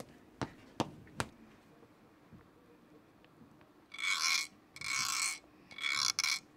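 Three light taps in the first second, then from about four seconds in three rough scraping strokes, each about half a second long and about a second apart.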